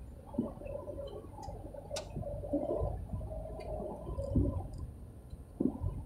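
Car cabin in slow traffic: a steady low engine and road rumble, with faint muffled wavering sounds over it and one sharp click about two seconds in.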